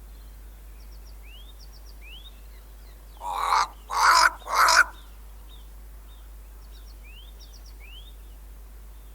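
A crow cawing three times in quick succession, harsh calls about three seconds in. Faint, high, rising chirps come and go in the background around them.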